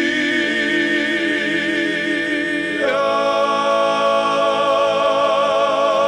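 Male vocal ensemble of seven singing a cappella in harmony, holding the song's closing chords: one long sustained chord moves to a new chord about three seconds in, which is held to the end.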